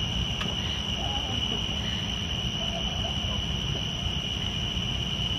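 Night insects trilling steadily at one high pitch, over a constant low rumble, with faint voices murmuring in the background.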